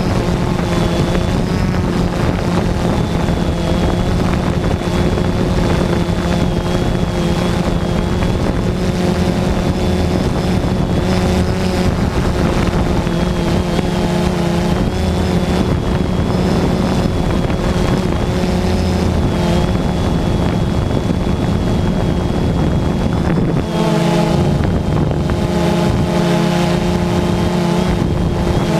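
DJI Phantom 2 quadcopter's motors and propellers running with a steady drone and a thin high whine, with wind on the microphone; the motor pitch shifts near the end as the throttle changes.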